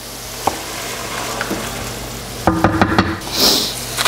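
Wine, butter and lemon sauce sizzling in a stainless steel skillet while a wooden spoon stirs and knocks against the pan, with a short, louder scrape about two and a half seconds in.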